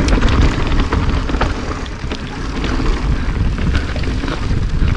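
Mountain bike descending a dirt singletrack at speed: wind rumbling over the camera microphone and tyres rolling on dirt, with frequent clicks and rattles from the bike as it goes over bumps.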